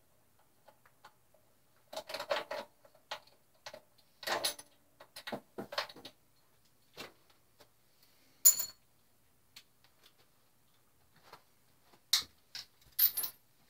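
Hand tools clicking and clinking on the mounting bolts of a Suzuki Hayabusa's stock exhaust as it is taken off, in irregular clusters, with one sharp, ringing metal clink a little past halfway.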